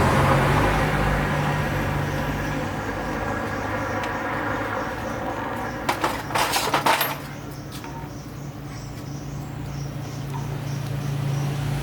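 An engine running with a steady low hum, fading after a few seconds and coming back near the end. A short burst of knocks comes about six to seven seconds in.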